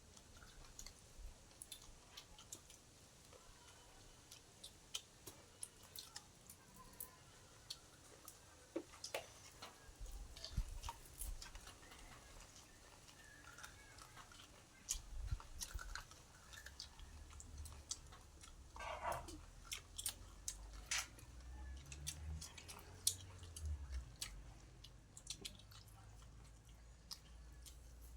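A person chewing food close to the microphone, with many scattered, irregular wet mouth clicks and smacks.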